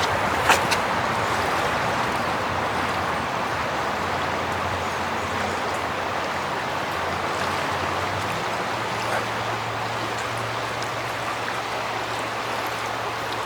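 Steady rushing of the Duck River running high and fast with floodwater, with a sharp click about half a second in.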